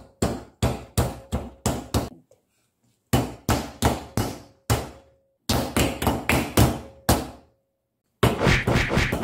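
Cookie dough under plastic wrap being pounded again and again with a wooden rolling pin and bare hands: sharp knocks about two to three a second in runs with short pauses, coming faster near the end.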